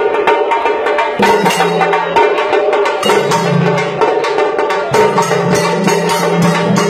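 Tassa drum ensemble playing a fast, driving rhythm: sticks beating tassa drums in dense, steady strokes over a sustained low bass.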